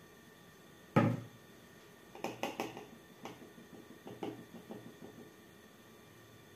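A plastic mixing bowl set down on a table with one sharp knock, the loudest sound, about a second in. Then a run of lighter taps and scrapes as a silicone spatula works thick pancake batter through a plastic funnel into a bottle.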